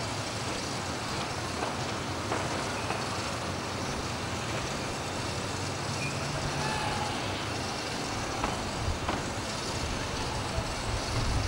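Steady road-traffic noise, with a few faint knocks scattered through it.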